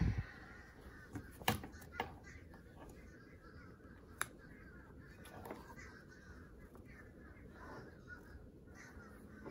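Handling of a vintage leather handbag as it is turned over and opened: leather rubbing and creaking, with a few sharp clicks and taps. One click, about four seconds in, comes as the brass turn-lock clasp is turned to free the flap.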